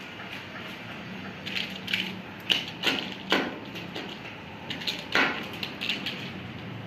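A dozen or so irregular sharp taps and knocks over about five seconds as a cat pounces and scrabbles about on a tiled floor, starting about a second and a half in.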